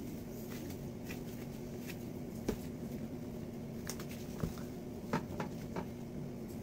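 Gloved hands shaping balls of cookie dough and setting them on a parchment-lined baking tray: a few light taps and rustles over a steady low hum.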